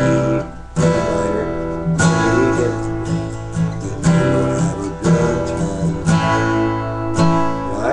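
Cutaway acoustic guitar played through a chord progression, chords struck about once a second over shifting bass notes.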